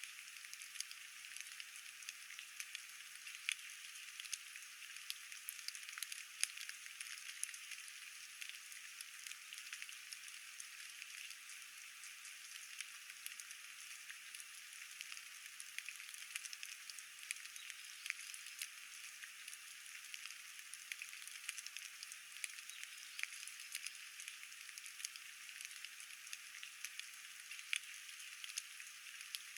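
Steady, faint rain falling, with many small drops ticking irregularly.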